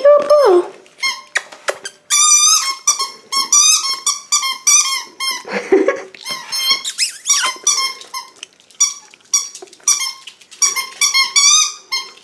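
Pug-Jack Russell cross puppy chewing a rubber squeaky toy, setting off quick runs of high squeaks, several a second, with short pauses between runs.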